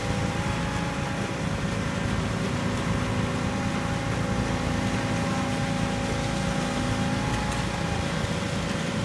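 Heavy diesel truck engines of a concrete pump and transit mixers running steadily, a constant rumble with a few held whining tones over it.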